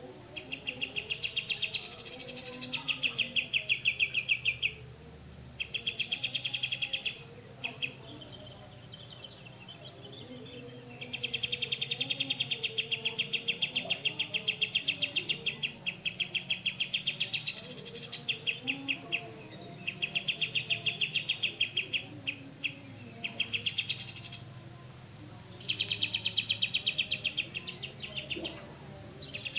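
Cucak jenggot (grey-cheeked bulbul) giving its besetan call: repeated bursts of a fast, even, buzzing rattle, each lasting one to four seconds with short pauses between, over a faint steady high hiss.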